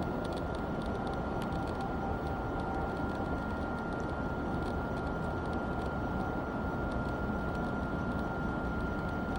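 Steady outdoor background noise: a low rumble with an even hiss, a constant thin high whine, and faint light ticks.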